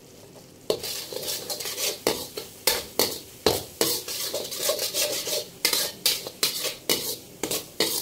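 Slotted steel spatula scraping and clinking against a metal wok, stirring gram flour and semolina as they roast in oil. The strokes start about a second in and come roughly twice a second.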